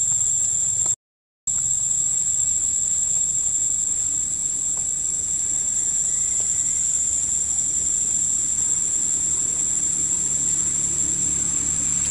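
Steady, high-pitched drone of insects over a low rumble. It drops out completely for half a second about a second in, then resumes unchanged.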